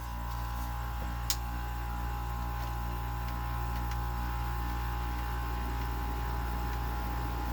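General Electric 5,100 BTU R22 window air conditioner running in cooling mode: a steady compressor and fan hum with a steady whine, as the unit is just reaching cold. One short tick about a second in.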